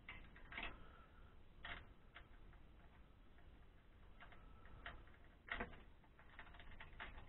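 Faint, scattered clicks and light taps of metal as a homemade aluminum mold guide on a casting pot is handled and locked in place.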